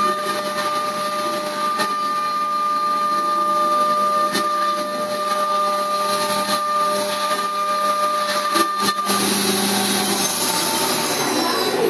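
Haas CNC mill spindle at 12,000 rpm driving a 1/2-inch Destiny Tool Viper carbide endmill slotting aluminum under flood coolant: a steady pitched cutting tone over spraying coolant, with a few sharp ticks. About nine seconds in the tone stops, leaving the hiss of the coolant spray.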